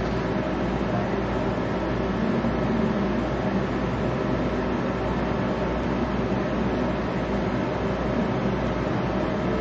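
Steady electric buzz of a small handheld vibrating facial beauty bar held against the jaw, running without change.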